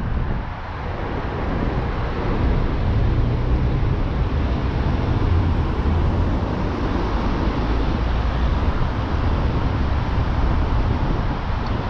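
Steady road noise from a moving car: a low rumble with a hiss of air over it, dipping briefly near the start.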